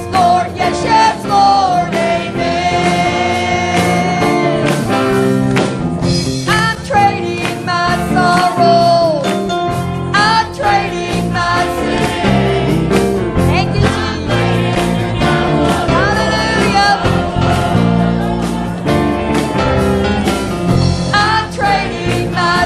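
Live gospel worship music: a sung melody with long held notes over a band with bass and steady drum beats.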